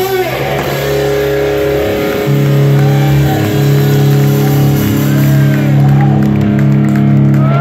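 Punk band's amplified electric bass and guitar holding a steady droning chord through the amps, with a few short sliding notes above it.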